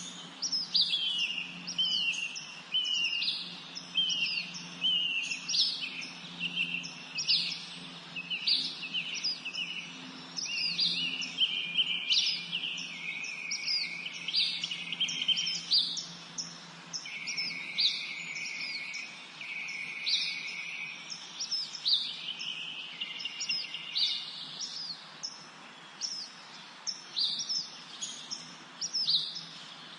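Songbirds chirping and singing in a spring forest: many short, quick, overlapping calls repeating about every half second, thinning out over the last few seconds.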